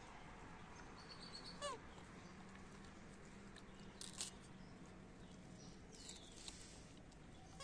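Faint background with a short, high, falling squeak from a macaque monkey about two seconds in and another at the very end, plus a faint click near the middle.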